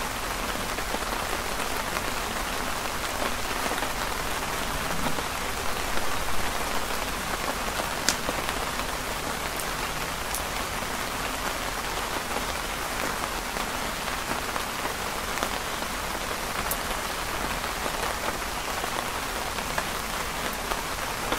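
Steady rain falling and pattering on a canopy overhead, with a few sharp clicks scattered through it.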